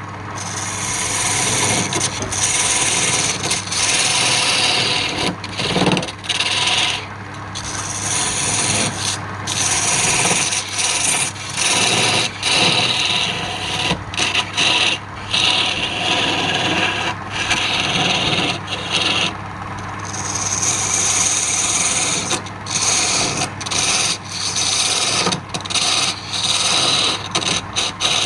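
Wood being worked on a lathe: a turning tool or abrasive scraping against the spinning wood in repeated passes with brief breaks, over a steady low hum.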